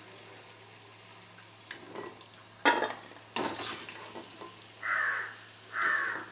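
A metal spoon scrapes and clinks against an aluminium kadai as ghee-fried cashews are scooped out, with a few sharp knocks between about two and three and a half seconds in. Near the end come two short harsh calls about a second apart.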